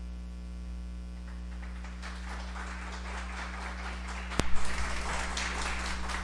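Applause breaking out and building from about two seconds in, over a steady electrical hum. A single sharp knock about four seconds in.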